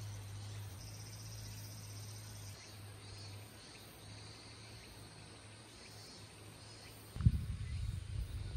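Faint insects chirping in a fine, high-pitched pulse over a low steady hum that fades after a couple of seconds. About seven seconds in, a sudden loud thump is followed by irregular low rumbling.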